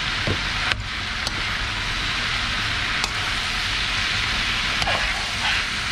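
Chopped bopis with diced tomatoes and red bell pepper sizzling steadily in a large aluminium pan, while a metal ladle stirs it and clicks against the pan a few times.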